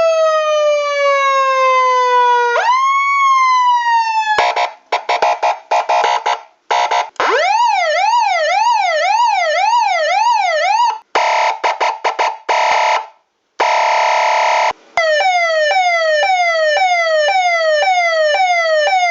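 A run of emergency-vehicle siren sound effects, one after another. First a slow wail winds down and swoops back up. Then come choppy horn-like blasts, a fast wail rising and falling about twice a second, more choppy blasts and one longer steady blast, and a rapid series of falling sweeps about two a second.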